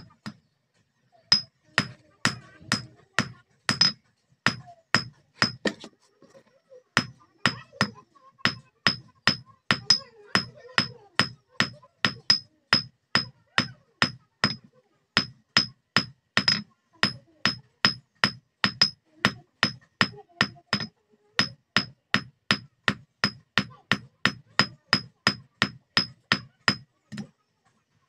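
Hand hammer striking a red-hot steel bar on a steel block anvil in steady blows, about two a second, each with a short high ring. There is a brief pause about six seconds in.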